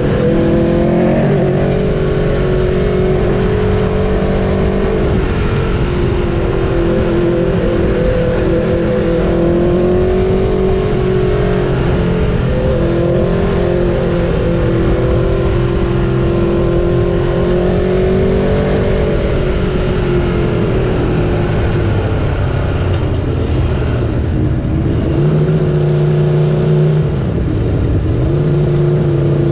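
Aprilia Tuono V4 Factory's V4 engine heard onboard, the revs rising and falling over and over as the bike is ridden. Near the end the revs drop sharply, then pick up again.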